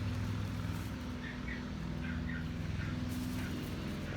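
A steady low mechanical hum, like a running engine or motor, with a few short faint chirps between about one and two and a half seconds in.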